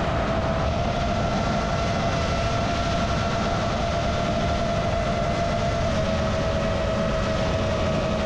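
Brushless motors and propellers of an FPV quadcopter whining steadily at cruising throttle, with wind rushing over the onboard camera's microphone. The pitch dips slightly about six seconds in.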